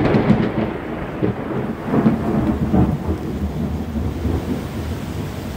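Thunder rumbling over heavy rain, with louder rolls right at the start and again about two seconds in.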